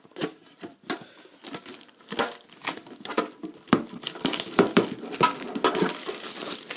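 Plastic shrink-wrap being torn and crinkled off a metal card tin, with scattered clicks and taps of the tin being handled; the crackling gets busier in the second half.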